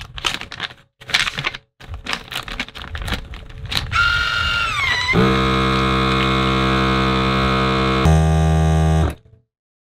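Plastic vacuum bag rustling and clicking as it is fitted into a countertop vacuum sealer. About four seconds in, the sealer's pump starts with a falling whine and runs as a steady buzzing hum. It drops to a deeper hum about a second before it cuts off.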